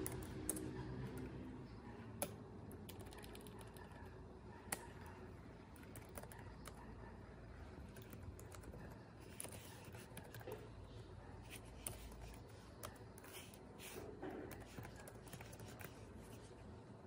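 Irregular, scattered key clicks from typing on a Lenovo laptop keyboard, faint over a low steady hum.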